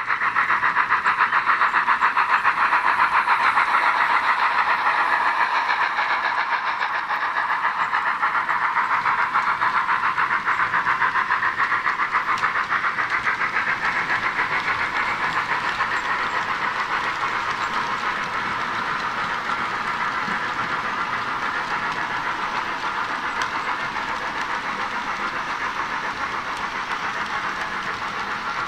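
Sound decoder of an H0-scale Roco BR 86 steam tank locomotive model playing an even, rhythmic steam chuffing through its small speaker, with rail running noise as the freight train goes by. The chuffing slowly fades as the locomotive moves away.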